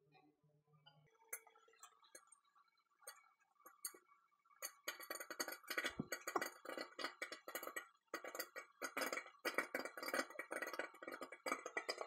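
Dry popcorn kernels popping in a silicone popper bucket inside a microwave. A few scattered pops at first, then a dense, rapid popping from about five seconds in.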